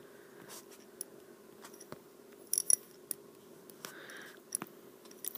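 Stylus tapping and sliding on a tablet's glass screen during handwriting: scattered light clicks, with two sharper ones about two and a half seconds in, over a faint steady hum.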